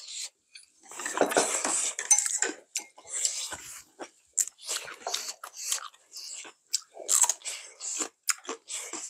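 Two people eating at close range: irregular wet chewing and slurping of dumpling stew, with crunchy bites into a raw green chili pepper and an occasional clink of chopsticks on dishes.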